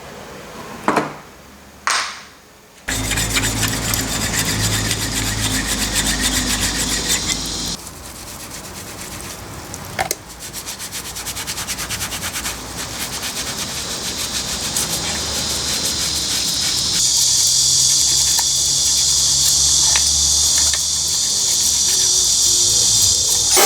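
Two sharp knocks, then a long stretch of rapid abrasive rubbing like sanding or filing, which changes character a few times and grows louder towards the end.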